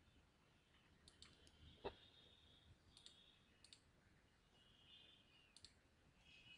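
Near silence broken by a few faint, scattered computer mouse clicks; the clearest comes about two seconds in.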